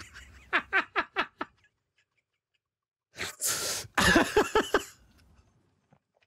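A man laughing hard in a quick run of short bursts, breaking off for a moment, then a breathy rush of air and another run of laughter about three seconds in.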